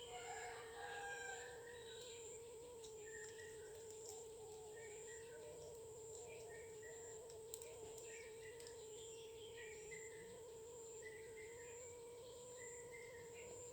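Parrots chirping faintly, with short calls scattered all through, over a steady background hum.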